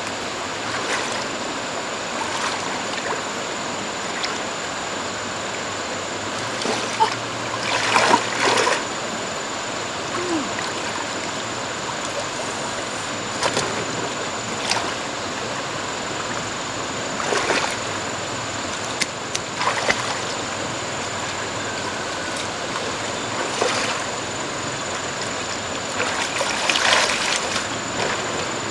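Water splashing in irregular bursts, about ten times, over a steady rush of moving water.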